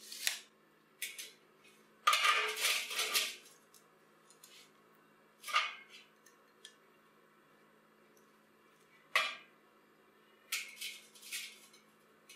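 Metal clinks and clatter of a steel rod and hand tools being handled on a slatted steel workbench. A rattling stretch of about a second comes roughly two seconds in, then single sharp clinks and a short cluster near the end.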